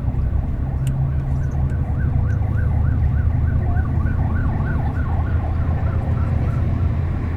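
Emergency vehicle siren in a fast yelp, its pitch rising and falling about three times a second. It is heard from inside a moving city bus, over the low rumble of the bus's engine.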